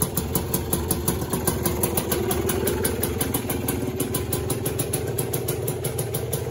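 Aprilia RS 125's single-cylinder two-stroke engine idling steadily with an even, rapid firing beat.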